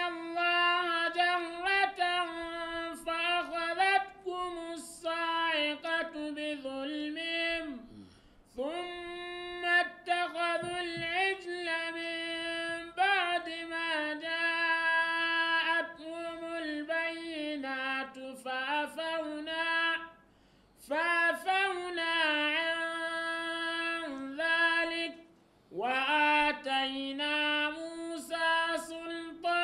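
A man chanting Quranic verses in melodic tajwid style: one high voice holding long, ornamented notes in several long phrases, with short breaks for breath.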